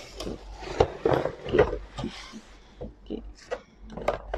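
Thin plastic carrier bag rustling and crinkling in irregular bursts as a clear plastic takeaway food container is pulled out of it.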